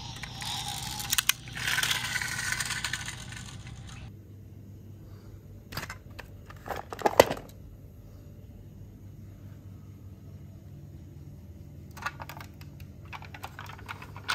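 Toy trucks being handled: a scraping rustle of small toy wheels rolled over concrete in the first four seconds, then scattered plastic clicks and clacks as the toys are set down and picked up, the sharpest about seven seconds in and a cluster near the end.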